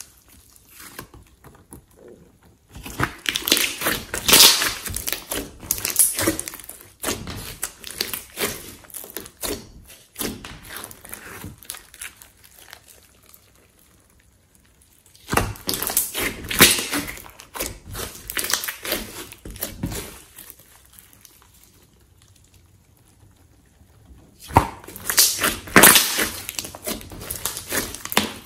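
Hands squeezing and kneading a large glossy slime, making crackling, clicking pops in three stretches with quieter pauses between.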